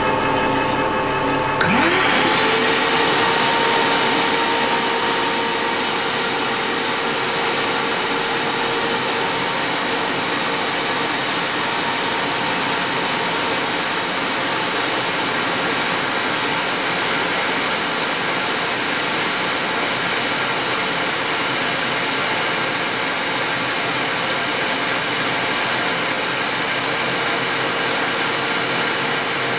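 Metal lathe running while facing a cast iron flywheel: a steady motor whine over the dry hiss of the cut. About two seconds in the sound changes, with a short rising whine that settles and then holds steady.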